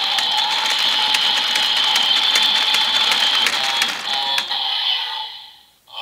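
DX Evol Driver toy belt with its side crank lever being turned: rapid ratcheting clicks over the belt's steady electronic standby sound from its small speaker. It stops about five and a half seconds in, as the cranking ends just before the belt's 'Are you ready?' call.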